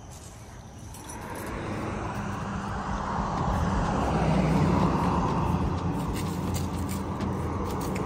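A road vehicle passing on the street: tyre and engine rush swelling to a peak about halfway through, then easing off.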